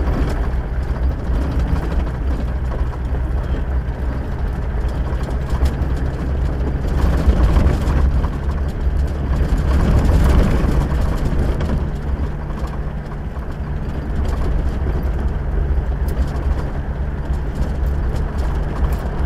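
A vehicle's engine running with road noise while driving off-road. The noise swells louder from about seven seconds in, peaking near ten seconds, and the engine hum shifts pitch about twelve seconds in.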